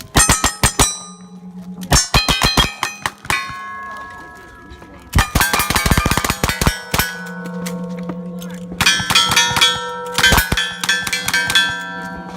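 Rapid gunshots in several quick strings, each shot followed by steel targets ringing out with a clang as they are hit.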